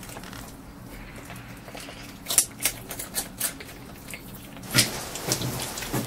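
Otter crunching food: sharp, uneven crunches and clicks begin about two seconds in, with a loud crunch near the end and denser crackling after it.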